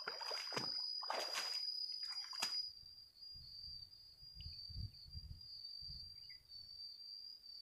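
Water splashing and draining off a landing net full of live fish as it is lifted from a pond, in three short bursts over the first couple of seconds, over a steady high-pitched insect drone. After that only faint low rumbling remains.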